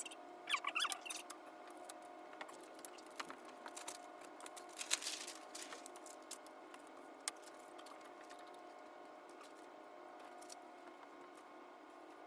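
Scattered light clicks and taps over a steady low hum, with a brief high, chirpy fragment of sped-up voice about a second in.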